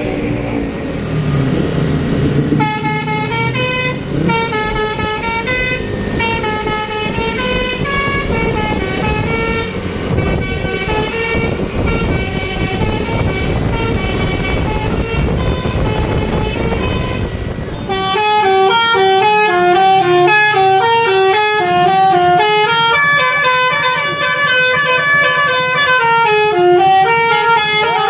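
Tour bus 'telolet basuri' musical horn playing a quick melody of short stepped notes over bus engine and road noise. About 18 seconds in, the engine noise drops away and a louder, clearer horn melody takes over.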